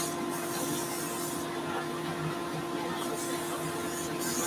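Axminster AW305WL wood lathe running with a steady whine while abrasive paper hisses against the spinning wooden workpiece as it is sanded.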